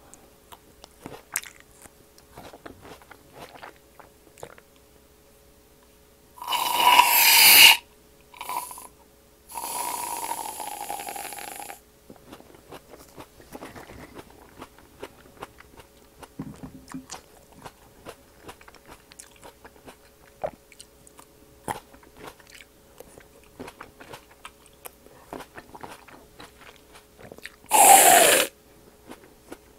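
Aerosol whipped-cream can spraying in hissing bursts: a short and a long burst about a third of the way in, with a brief one between, and a short burst near the end as the cream is sprayed straight into the mouth. In between come small, crisp bites and chewing of green grapes.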